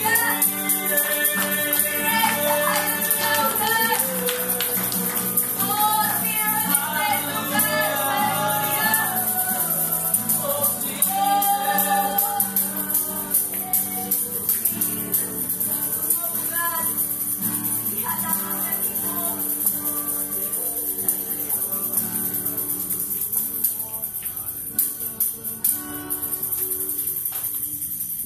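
Live worship song: a woman singing the melody over steady guitar accompaniment, with a tambourine shaken along in rhythm. The music thins out and gets quieter over the last few seconds.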